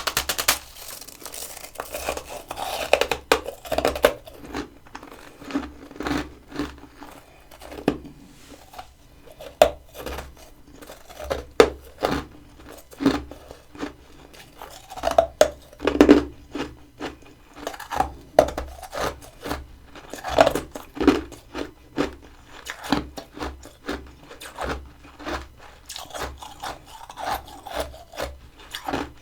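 Freezer frost crunching: many irregular crisp crunches and scrapes, as the frost is bitten and chewed.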